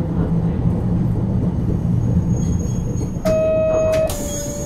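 Nagasaki Electric Tramway Series 202 streetcar, a 1950 Nippon Sharyo car with Mitsubishi resistor control, heard from on board: a steady low rumble of the car on the rails. About three seconds in, a loud steady beep sounds for under a second, then goes on a little lower in pitch with a hiss over it.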